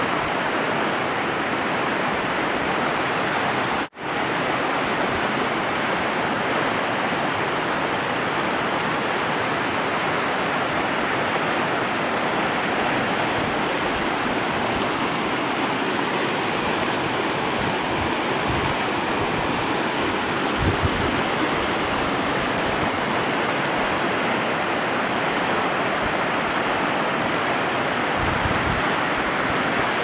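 Shallow river rushing steadily over rocks and small rapids. The sound drops out briefly about four seconds in.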